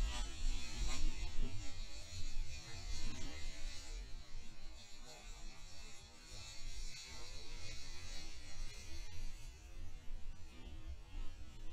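Water splashing as a hooked fish thrashes at the surface beside the boat, over a rough low rumble of wind on the microphone. The splashing comes and goes, heaviest in the first few seconds.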